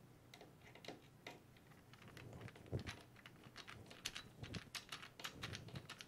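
Faint, irregular clicking and ticking of small metal tools and hardware: a screwdriver and pliers working small hex nuts onto bolts, several clicks a second and busier in the second half.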